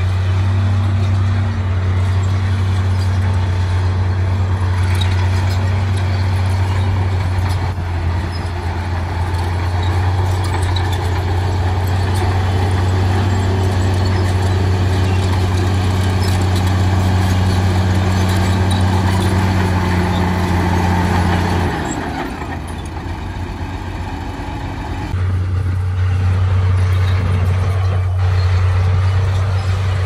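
Heavy diesel engine running steadily with a low drone. About two-thirds through, the drone falls away for about three seconds, then comes back.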